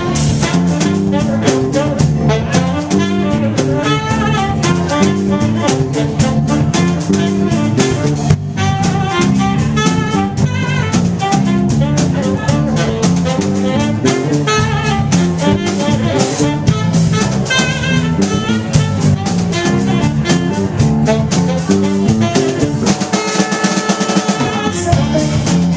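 A live band playing an instrumental passage: drum kit, electric guitar and saxophone.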